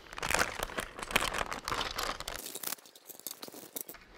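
Clear plastic parts bag crinkling as it is torn open and handled. It is a dense run of crackles for the first two seconds or so, then thins out to a few quieter rustles.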